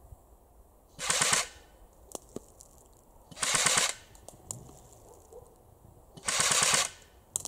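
Snow Wolf Barrett SW-02A CQB electric airsoft replica firing three short full-auto bursts, each about half a second of rapid shots, a couple of seconds apart.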